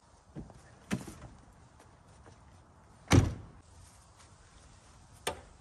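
Knocks and clunks from handling a metal ammo can used as a fire box, with one much heavier clunk about three seconds in.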